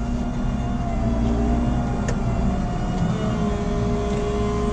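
JCB Fastrac 4220 tractor's diesel engine running steadily at idle, with a single sharp click about two seconds in and a steady whine joining about three seconds in.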